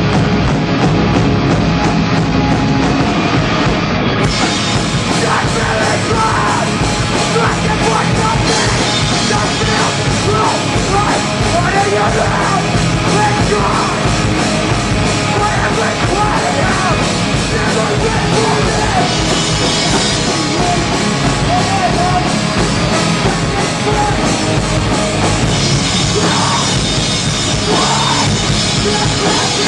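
Hardcore punk band playing live and loud. Drums carry the opening seconds, then distorted guitars and bass come in about four seconds in, with yelled vocals over the band from a couple of seconds later.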